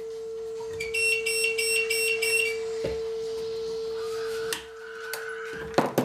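A steady electronic test tone sounds from the audio gear under test. About a second in, a rapid high beeping pattern of about five pulses a second comes in and lasts a little under two seconds. The steady tone drops out about four and a half seconds in, among a few light clicks.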